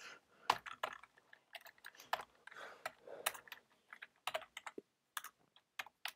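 Computer keyboard being typed on: irregular keystroke clicks in short runs with brief pauses between them.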